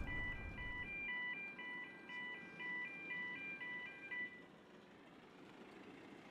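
A simple electronic beeping melody, a few tones stepping up and down at about two notes a second, repeating until it stops about four seconds in. Under it, the low rumble of a passing lorry engine fades away in the first second.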